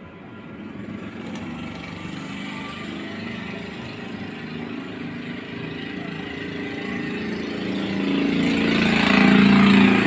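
A motor hum, with gas hissing through the manifold gauge hoses as refrigerant is let into the refrigerator's sealed system after evacuation; the hiss and hum swell near the end.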